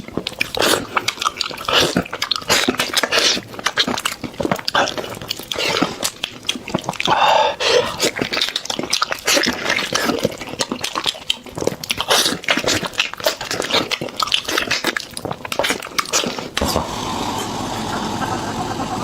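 Close-miked wet chewing and lip-smacking on sticky, gelatinous beef trotter: dense, irregular clicks and smacks. Near the end the smacking gives way to a steadier hiss.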